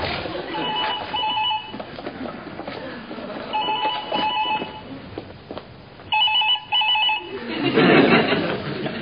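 A telephone ringing with the British double ring: three pairs of short warbling rings a few seconds apart. A louder burst of noise swells near the end, after the last pair.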